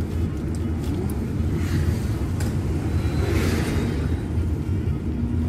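Steady low rumble of a car's engine and road noise heard inside the moving cabin, with two brief soft hissy rustles about two and three and a half seconds in.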